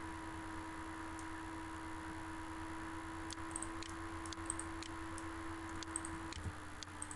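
A few faint, short computer mouse clicks over a steady low electrical hum.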